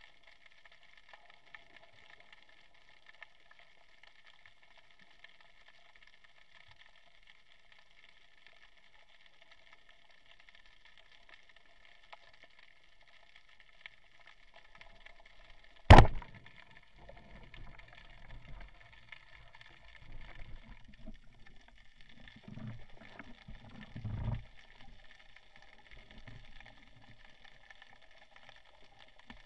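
Speargun fired underwater: one sharp, loud crack about halfway through. Before it there is only a faint, steady underwater hiss, and after it come irregular low rumbles of water movement.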